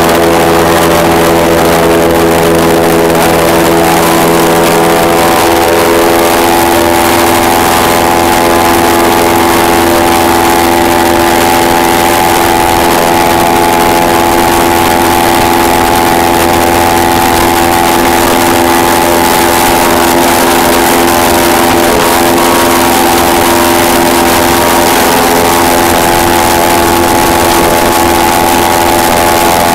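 Airboat engine and air propeller running loud and steady as the boat cruises across the marsh, the engine note shifting slightly about five seconds in.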